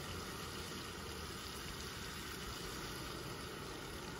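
Steady sizzling and simmering of zucchini and tomato sauce cooking in pans on a gas stove: an even hiss with no breaks.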